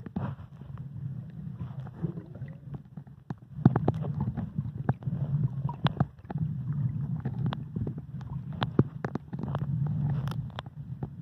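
Muffled underwater sound from a camera held below the surface while snorkeling: a low rumbling water noise that swells and fades in surges of a second or two, with many scattered sharp clicks and crackles.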